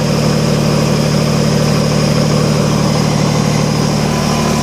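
Kubota BX25D compact tractor's three-cylinder diesel engine running steadily, with a faint steady whine entering about four seconds in.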